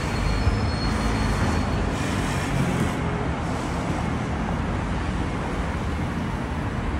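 City street traffic: a steady rumble of cars and vans passing on the road.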